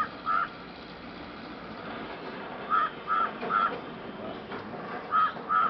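A crow cawing: seven short, loud caws in clusters, two at the start, three in the middle and two near the end.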